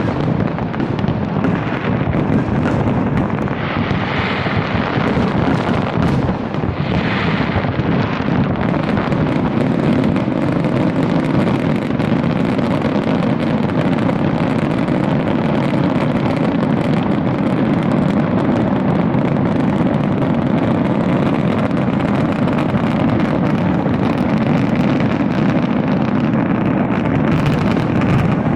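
Large fireworks display: a dense barrage of detonations that merges into a loud, continuous rumble, with brief crackling hisses about four and seven seconds in.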